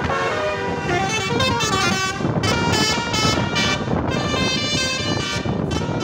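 Telolet horn on a coach bus: a multi-tone air horn playing a quick tune of short notes that keep changing pitch, over road traffic noise.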